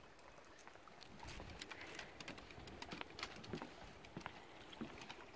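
Footsteps of a person and a small dog on a wooden boardwalk: irregular light clicks and taps, busiest in the middle, over the faint rush of a creek.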